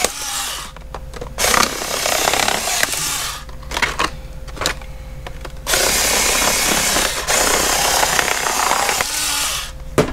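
Stiff clear plastic clamshell packaging being worked open by hand, crackling and crinkling in three long stretches with a few sharp clicks between them.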